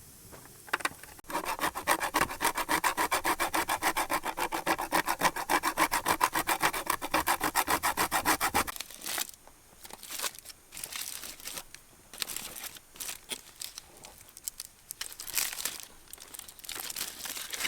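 Fast, even back-and-forth scraping strokes, about six a second, for some seven seconds, then scattered small clicks and rustles.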